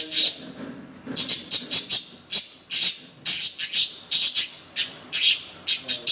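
Budgerigar giving a quick run of short, shrill chirps and squawks, several a second, with a brief pause about half a second in; the owner takes it for the bird being angry.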